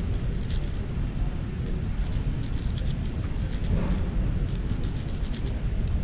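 Quick runs of plastic clicks from a MoYu AoShi WR M 6x6 speedcube being turned during a solve. They sound over a steady low rumble of a large hall, with a faint voice near the middle.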